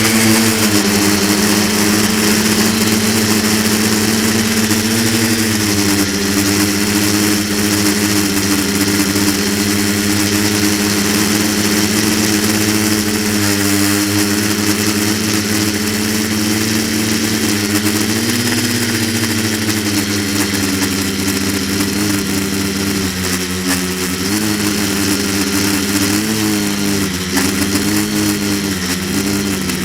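Quadcopter's electric motors and propellers running steadily, a buzzing hum whose pitch dips and rises as the throttle changes, wavering more often near the end.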